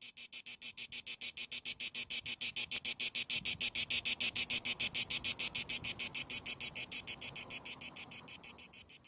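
Cicada singing: a high-pitched, fast and even pulsing of about eight or nine pulses a second, swelling to its loudest midway and fading toward the end.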